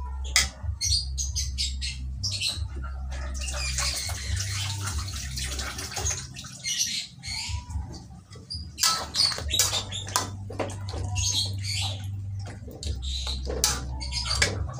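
Birds chirping and squawking in the background over a steady low hum, with a metal spatula scraping and knocking against an aluminium wok as spice-coated chicken pieces are turned.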